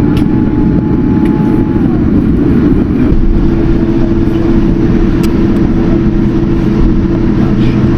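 Loud steady cabin noise of a Boeing 787-10 airliner on the ground: a deep rumble under the hum of its engines. A faint higher tone slides down and fades about two seconds in, and a stronger steady engine hum sets in about a second later.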